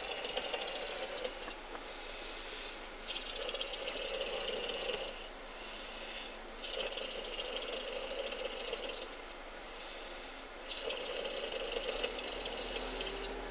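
A sleeping driver snoring: four long, noisy snores, about one every three and a half seconds, with quieter breathing between them.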